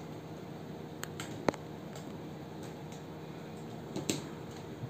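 Small sharp clicks and taps of a pointed tool on a plastic oil bottle as its sealed mouth is pierced open, over a faint steady hum. The loudest click comes about a second and a half in, with a couple more near the end.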